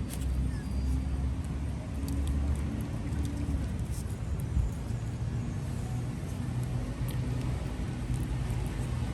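A steady low motor hum, with a few faint clicks.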